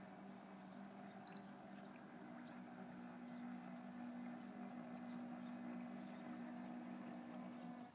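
Radio-controlled bait boat's electric motors running under way, a steady low hum that grows a little louder as the boat comes closer, then cuts off suddenly near the end.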